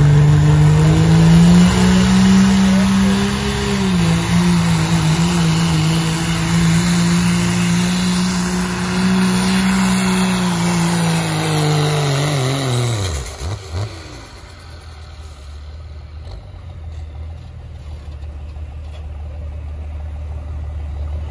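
Turbocharged diesel pickup in the 2.6 Pro Street class pulling the sled at full throttle: a loud, steady engine drone whose pitch climbs slightly near the start and holds high. About twelve to thirteen seconds in the engine note falls away steeply as the driver lets off at the end of the pull, leaving a much quieter background.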